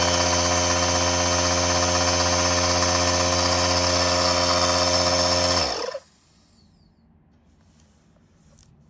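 McGraw 3-gallon oil-free portable air compressor's motor and pump running loud and steady, then switched off about six seconds in and winding down within a fraction of a second.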